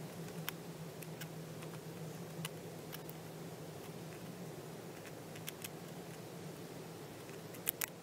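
A red squirrel gnawing at a nut's shell: irregular sharp clicks and small cracks, with two louder ones in quick succession near the end, over a steady low hum.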